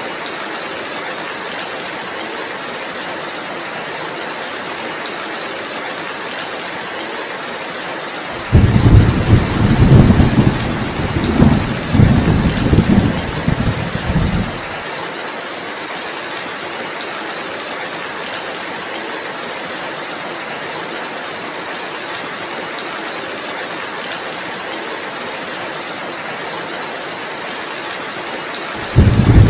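Heavy rain falling steadily as an even hiss. About eight seconds in, a low rolling rumble of thunder comes in suddenly and lasts about six seconds, and another begins right at the end.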